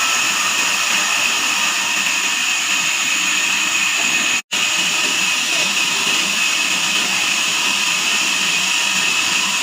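Band sawmill running steadily: a high whine over a constant rush of machine noise. The sound cuts out for an instant near the middle, then resumes unchanged.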